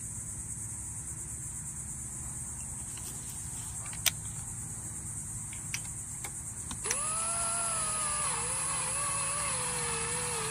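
A power tool's small electric motor starts abruptly past the middle and runs for about four seconds, its whine wavering and sliding down in pitch. Crickets chirr steadily throughout, and there is one sharp click about four seconds in.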